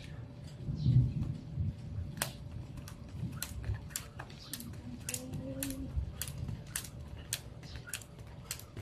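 Jump rope slapping a concrete driveway in a steady rhythm, about two to three sharp clicks a second, starting about two seconds in. A dull thump about a second in is the loudest sound.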